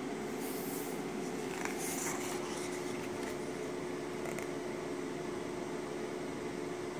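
A paper yearbook page being turned, with a few short rustles in the first couple of seconds and a small one a little later. Underneath runs a steady background hum with one low, even tone.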